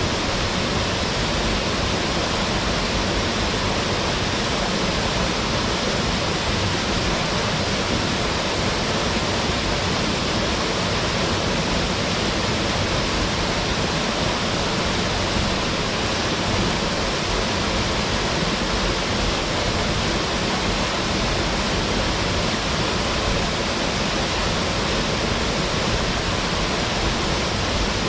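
Waterfall crashing into its plunge pool: a steady, dense rush of falling water with no change.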